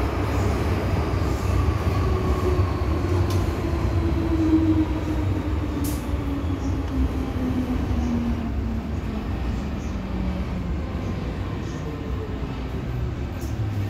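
MTR M-Train underground train running with a steady low rumble, its traction motors' whine falling slowly in pitch as the train slows to a stop at the platform. A couple of brief clicks sound over it.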